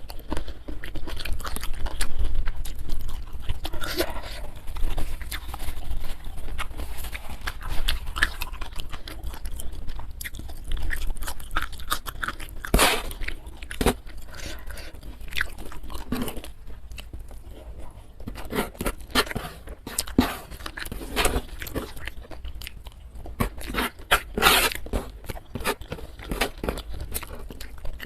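Close-miked eating: a person biting and chewing crisp food, with irregular crunches and wet mouth sounds, the loudest crunch clusters about two seconds in, near the middle and near the end.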